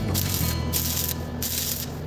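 Stick-welding arc crackling and sizzling as a 2.5 mm electrode burns at about 110 A on a steel pipe joint, over background music.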